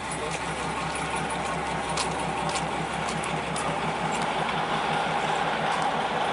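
Engine of a slow-moving rail vehicle running steadily with a rapid, even beat, with a few light clicks over it.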